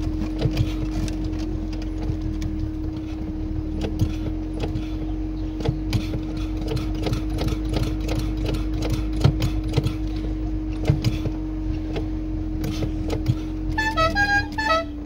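Inside a Tofaş Kartal driving over a rough dirt track: a steady engine drone under constant rattling and knocking from the car's body and loose interior parts over the stones, with a few short squeaks near the end.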